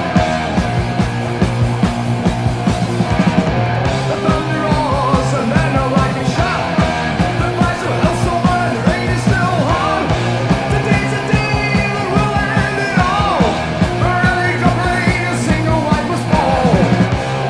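Early-1980s British heavy metal song: a full band with electric guitars, bass and a steady drum beat, and a lead line sliding and bending in pitch over the top from a few seconds in.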